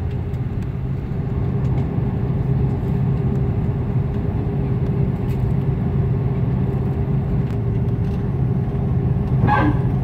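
Airbus A330 airliner cabin during taxi: the steady low rumble and hum of the engines at taxi power, with a brief higher-pitched sound near the end.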